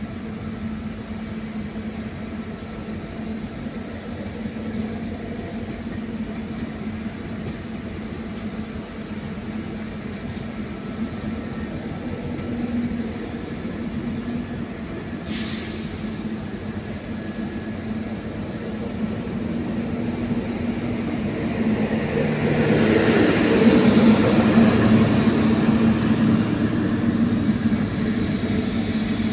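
Passenger coaches of a departing express train rolling past on the rails with a steady running noise. The sound grows louder near the end as the luggage-brake-and-generator car at the rear goes by.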